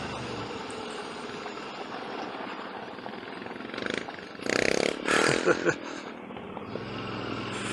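Royal Enfield motorcycle riding on a gravel track: engine running with tyre noise on loose gravel, and a few louder bursts about halfway through as the bike slows.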